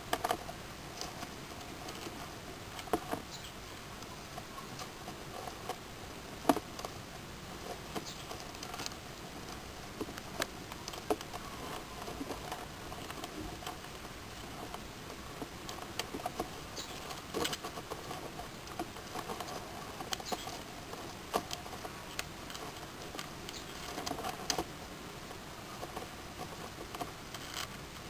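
Irregular sharp clicks and taps, a few much louder than the rest, of hermit crab shells and legs knocking against each other and scrabbling on gravel as two crabs grapple in a shell fight.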